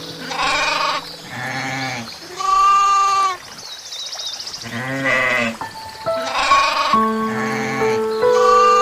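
A series of about seven short, wavering animal calls, each under a second long, coming every second or so over background music with long held notes.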